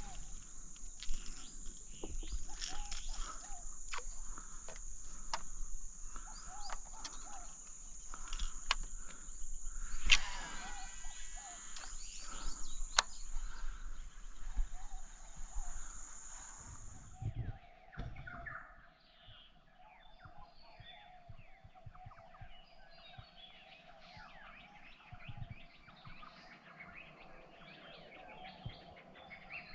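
Riverside bush ambience: birds chirping and calling, over a steady high-pitched drone with scattered clicks and knocks. About halfway through the drone stops abruptly, and a lower steady hum with denser bird chirping continues.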